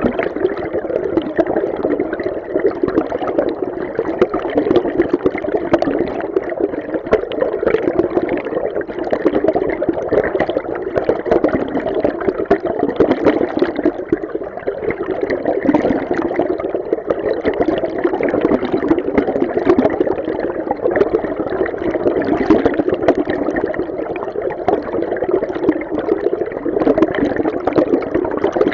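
River stream water recorded underwater: a steady, muffled rushing with a constant fine bubbling flicker, strongest in the low-middle range.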